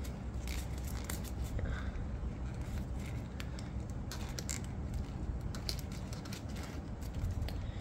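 Folded paper plane being handled, its paper rustling and crinkling in irregular small crackles and clicks.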